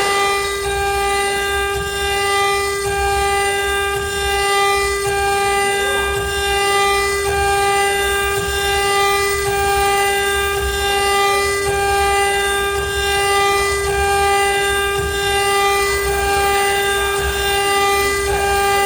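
CNC router running: a steady whine from the spindle, one held tone with overtones, over an uneven low rumble.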